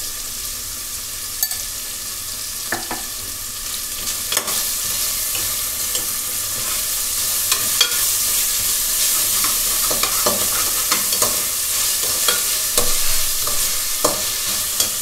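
Sliced onions sizzling in oil in a pressure cooker as they are sautéed with salt, stirred with a steel slotted spoon. Scattered clicks and scrapes of the spoon against the pan sound over the steady sizzle, which grows slightly louder.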